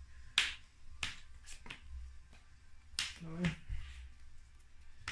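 Sleeved trading cards being flicked and laid down on a playmat during play: about four sharp clicks, spaced unevenly.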